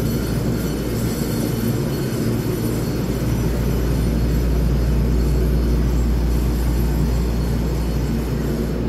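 Steady low hum and rumble of an EMU3000 electric multiple unit standing at an underground platform, its onboard equipment running, with a few constant low tones; it swells slightly in the middle.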